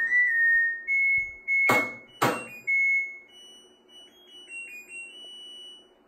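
LG front-loading washing machine playing its end-of-cycle melody, a short tune of electronic beeps stepping in pitch, which signals that the wash has finished. Two sharp clicks sound about two seconds in.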